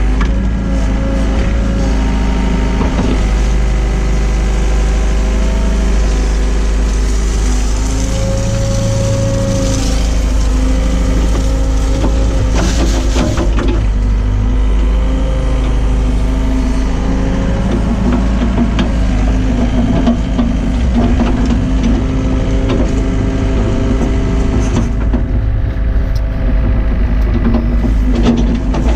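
Hyundai excavator's diesel engine running steadily under working load, its note shifting slightly as the hydraulics work, with occasional scrapes and knocks, loudest about twelve seconds in and near the end.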